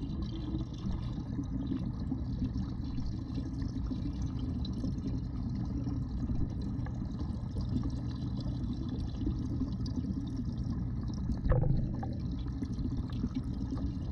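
Backyard pond waterfall pouring into the pond, heard underwater as a steady muffled rush. A single brief knock about three quarters of the way through.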